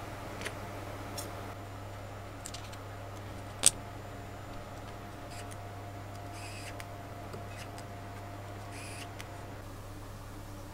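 Small clicks of metal parts and tweezers as the model engine's water pump is fitted, with one sharper click a little over a third of the way in. Later a mini electric screwdriver whirs briefly twice as it drives the pump's screws. A steady low hum runs underneath.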